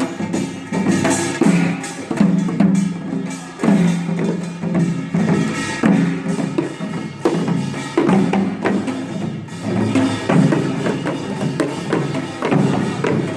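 Korean traditional folk instrumental music: a low melodic line of repeated notes over sharp wooden percussion strokes in a steady rhythm.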